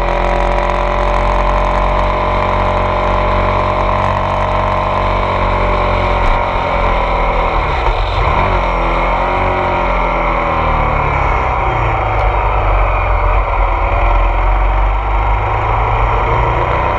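Ducati Multistrada 1200 S DVT's Testastretta 1198 cc L-twin engine running under way. The revs fall about eight seconds in and then climb again.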